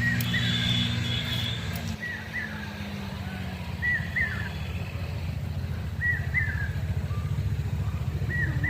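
A bird calls a short two-note chirp about every two seconds, over the steady low hum of an engine that takes on a fast pulsing beat in the second half.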